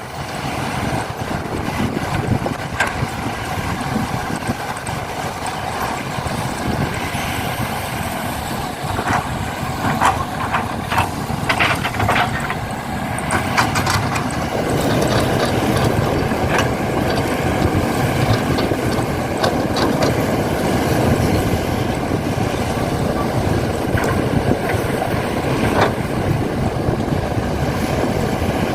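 Engine-like running sound, steady, growing louder from about halfway through, with a scatter of sharp clicks and knocks a third of the way in.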